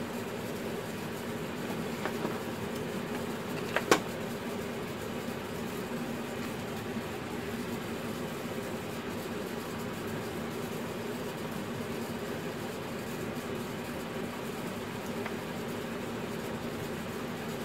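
A steady mechanical hum, with a sharp click about four seconds in.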